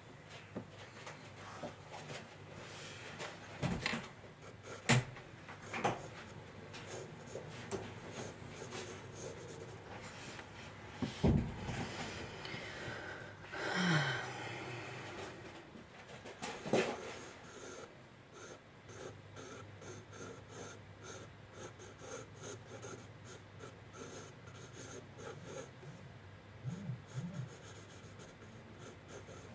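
A pen drawing on sketchbook paper in many short, quick strokes through the second half. There are a few knocks earlier and one breathy sound about halfway through.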